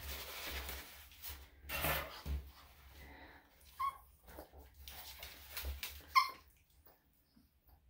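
Yorkshire Terrier giving short, high whimpering yelps, two brief ones about four seconds in and a louder one around six seconds, with some rustling earlier on. The cries are the small dog protesting at having its nails clipped, which the groomer says does not mean it is being hurt.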